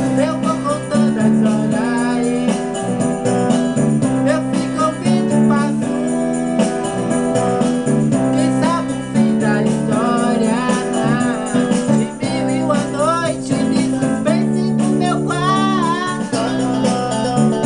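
A pop song playing, with steady chords underneath and a wavering melodic line on top.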